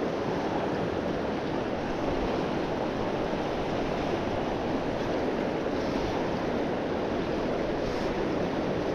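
Steady rush of flowing river water, an even noise that holds the same level throughout.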